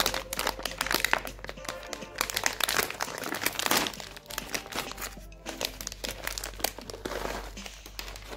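Foil-lined plastic snack bag crinkling as it is handled and torn open, with background music playing.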